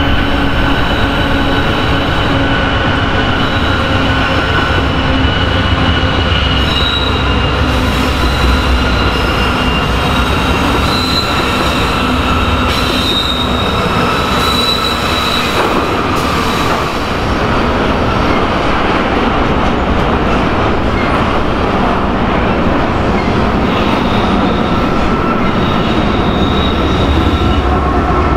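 BNSF double-stack container freight train rolling past behind its diesel locomotives: a loud, steady rumble of wheels on rail with thin, high wheel squeal that comes and goes.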